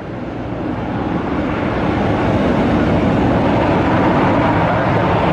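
Loud, steady rushing roar of an airliner's jet engines, building over the first two seconds and then holding.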